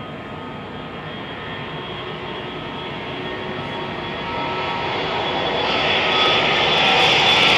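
Airbus A319 jet engines at takeoff thrust during the takeoff roll: a steady roar with a high whine over it, growing louder as the airliner accelerates closer, loudest near the end.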